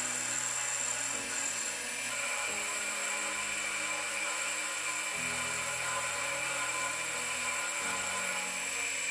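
Metal lathe (Metal Master X40100) running with a steady high whine as the cutting tool turns and chamfers the end of a hex-bar workpiece.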